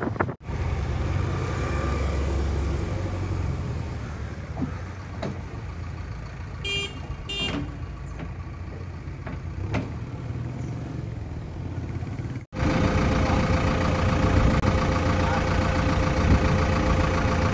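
Diesel engine running amid road traffic, with two short vehicle-horn beeps about seven seconds in. After a sudden cut near the end, a JCB 3DX backhoe loader's diesel engine runs close by with a louder, steady hum.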